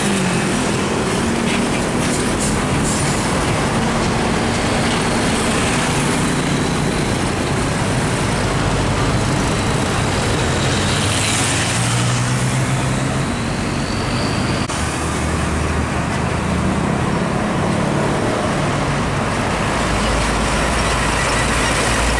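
Heavy diesel trucks driving past on a busy road: steady engine noise whose pitch shifts as they pull through, over tyre and traffic noise.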